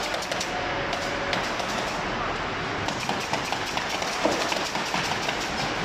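Steady din of a washing-machine dismantling line, thick with frequent sharp clicks and knocks of hand tools on the machines' metal and plastic casings.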